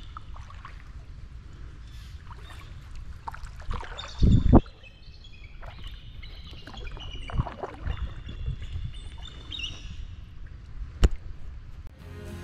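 Birds chirping repeatedly in short high calls over a low steady rush of outdoor noise, with one loud low thump about four seconds in and a sharp click near the end.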